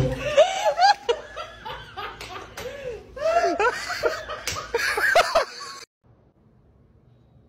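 A person laughing hard in a string of short, pitched bursts, with a few sharp knocks mixed in; it stops abruptly about six seconds in.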